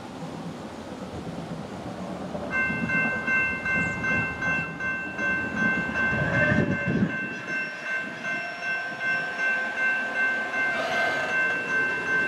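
Air horn of an approaching Norfolk Southern GE D9-40CW diesel locomotive sounding one long, steady chord that starts about two and a half seconds in and is held to the end.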